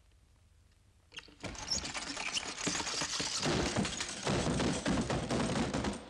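Dense, rapid rattling and knocking clatter, starting about a second in and running on with uneven loudness.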